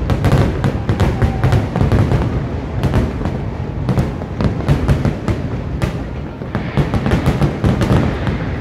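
Aerial firework shells bursting in quick succession: a dense run of sharp bangs and crackles over a steady low rumble.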